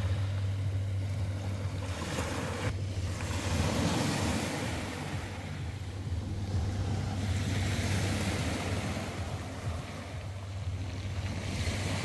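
Small waves breaking and washing up over a pebble beach, swelling and ebbing every few seconds.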